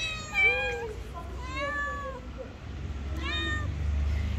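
Hungry stray cats meowing for food. There are about four drawn-out meows, the first two close together and overlapping.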